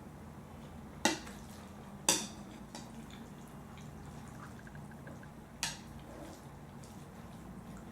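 Close-miked eating sounds: three sharp, wet clicks about one, two and five and a half seconds in, over a low steady background.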